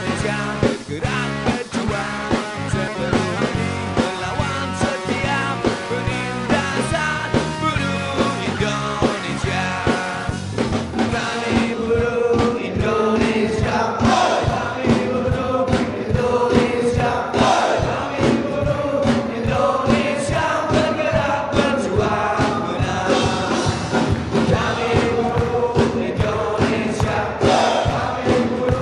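Rock-style music with a steady driving beat; singing comes in about twelve seconds in.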